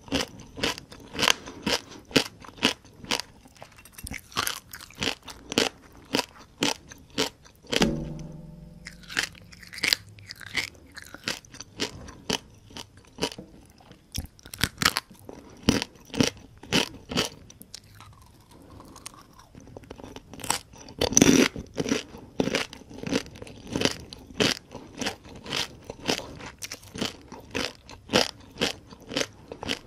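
Close-miked crunching and chewing of whole deep-fried small field crabs, the shells cracking in quick crunches about two or three a second. A louder burst of crunching comes about twenty-one seconds in.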